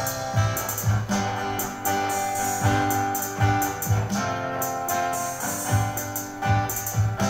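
Acoustic guitar strumming chords in an instrumental passage of a song, the strokes coming at a regular pulse.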